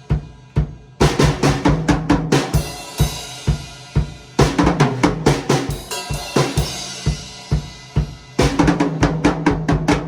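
Drum kit being played freely, with bass drum and snare hits. A few spaced strokes open it, then a busier groove starts about a second in, and a quick run of hits comes near the end.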